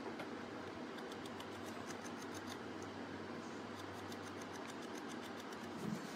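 Small paintbrush dabbing and stroking paint onto a mask, heard as faint, irregular scratchy ticks over a steady low hum, with a soft low thump near the end.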